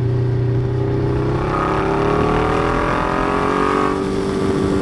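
Ducati Diavel's L-twin engine pulling under acceleration, its pitch rising steadily for a couple of seconds and then easing off about four seconds in, over wind noise.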